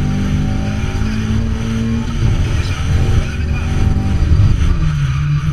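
Fiat Cinquecento rally car's engine running hard on a special stage. The note holds steady for about two seconds, then shifts and sits lower near the end.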